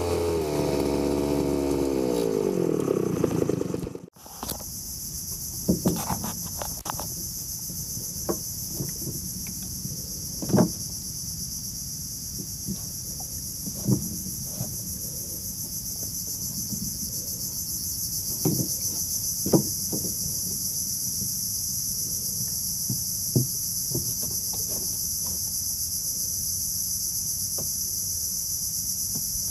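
A small 3 hp two-stroke outboard motor running, its pitch falling as it slows over the first few seconds. Then, from about four seconds in, a steady high insect chorus of crickets or cicadas, with occasional short knocks against the wooden boat.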